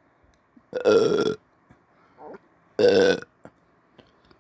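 A young man's deliberate, on-command burps: two loud burps about two seconds apart, each lasting about half a second.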